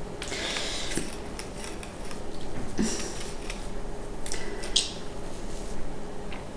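Hands pressing and squashing moist stuffing tightly into place on a pastry sheet: soft squelching and rustling with a few light clicks and taps.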